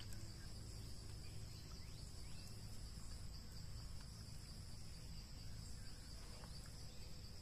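Faint, steady high-pitched insect chorus: a continuous buzz with a fainter higher band above it, over a low steady rumble.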